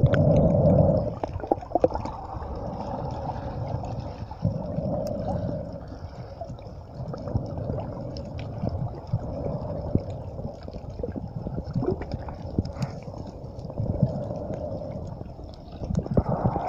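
Muffled underwater water noise picked up by a phone microphone held beneath the surface: gurgling and sloshing, with scattered small clicks and knocks. It grows louder near the end.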